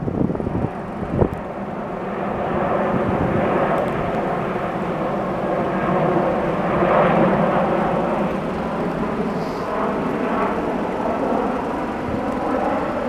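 Jet airliner on landing approach passing overhead: a rushing engine noise with several steady tones over it swells to a peak about seven seconds in and then eases off. A brief knock about a second in.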